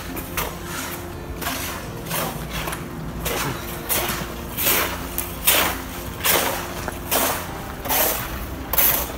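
Footsteps crunching on packed snow at a walking pace, about one and a half steps a second, over a low steady rumble.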